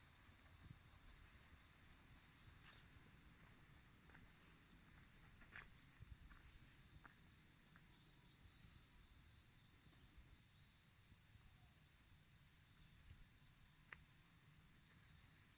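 Faint, steady high-pitched insect chirring, swelling a little louder about two-thirds of the way in, over a low background rumble, with a few faint ticks.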